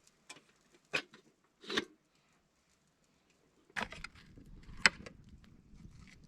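A few sharp clicks and knocks, then from about four seconds in a close, steady crunching with more sharp clicks.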